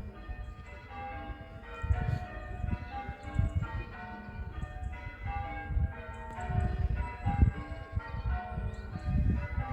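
Church bells ringing, a continuous run of strikes at several different pitches following one another, with a low rumbling noise on the microphone coming and going underneath.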